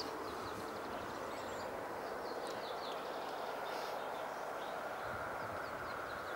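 Steady hum of road traffic with a car and a van driving past, while small birds chirp briefly several times.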